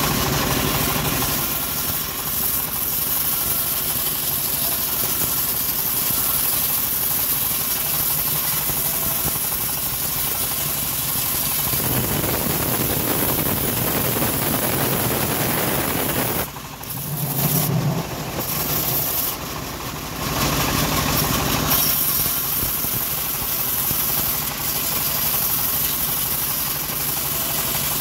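Homemade bandsaw mill running steadily while its blade rips a teak slab lengthwise, with a noisier stretch of cutting near the middle and a brief dip just after.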